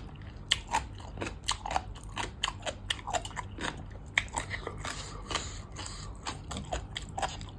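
Close-miked eating sounds of a person chewing and crunching papaya salad with raw crab and crisp fresh okra: many quick wet clicks and crunches, several a second.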